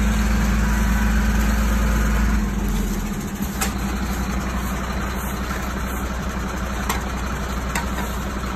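Large truck engine idling steadily, its deep rumble dropping lower about two and a half seconds in. A few light clicks sound over it later.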